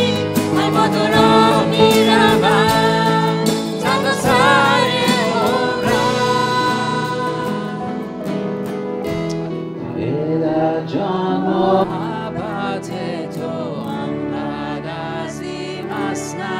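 Worship band performing a song: several voices singing together over strummed acoustic guitars. The music grows softer about seven seconds in.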